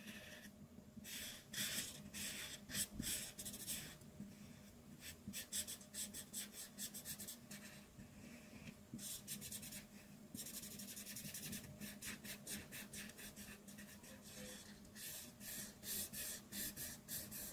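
Art marker tip scratching across paper in rapid back-and-forth colouring strokes, several a second, coming in runs with short pauses between them.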